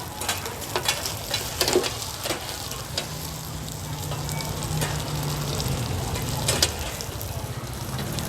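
Bột chiên, rice-flour cake and egg, frying in a large oiled pan: steady sizzling broken by sharp clicks and scrapes of a metal spatula stirring and tapping against the pan.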